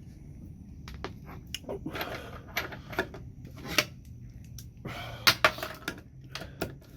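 Irregular sharp clicks and light metal clatter of hand work with bolts and tools on a car's floor, with a cluster of louder knocks near the end.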